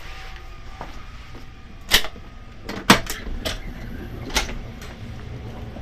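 Several sharp, irregular knocks and clicks from handling things inside the sleeper compartment, the loudest two about two and three seconds in, over the low rumble of the 285 series train.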